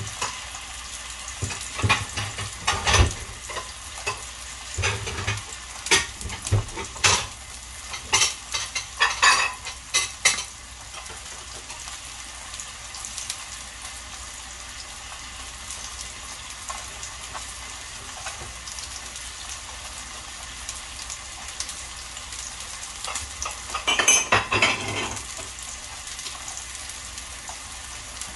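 Beef steaks and vegetables sizzling steadily on a hot grill pan, with a run of sharp pops and clicks through the first ten seconds and another short cluster near the end.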